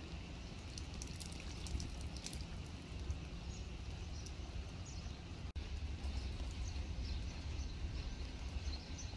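Light rain falling on a shallow muddy puddle and wet grass: a steady patter over a low rumble. The sound drops out for an instant about halfway through.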